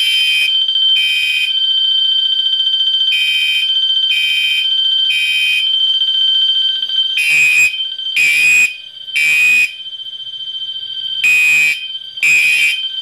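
A Wheelock MT fire alarm sounds a steady electronic bell tone while a Gentex horn strobe on its code-3 mechanical horn tone blasts over it: three buzzy half-second blasts about a second apart, then a pause, repeating in the temporal-3 evacuation pattern.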